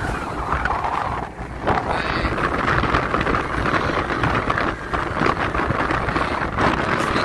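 Wind buffeting the microphone aboard a speedboat under way, with the rush of the boat's engine and water beneath it.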